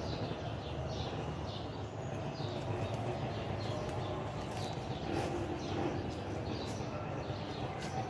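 Small birds chirping: many short, high, falling chirps in quick succession, over a low steady rumble.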